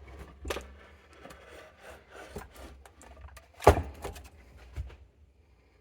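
Scraping, rubbing and small clicks of the oscilloscope's power transformer and chassis parts being worked loose by hand, with one sharp knock a little over halfway through.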